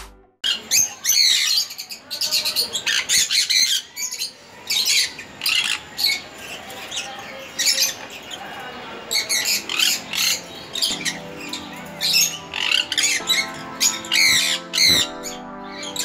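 Cockatiels calling over and over in short, harsh, high squawks. Background music comes in about eleven seconds in and runs under the calls.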